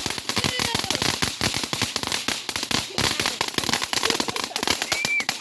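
Consumer firework crackling: a dense, continuous run of rapid sharp pops that stops abruptly at the end.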